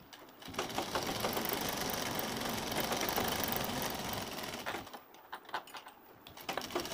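Domestic straight-stitch sewing machine running a straight seam. It starts about half a second in, runs steadily for about four seconds and stops, followed by a few light clicks.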